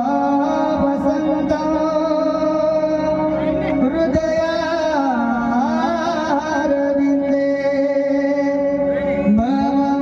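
A male kirtan singer singing a devotional Marathi melody in long held, ornamented notes with sliding turns, over a steady instrumental drone.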